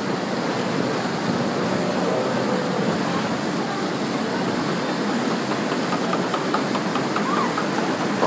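Log flume ride's water rushing steadily through its channel.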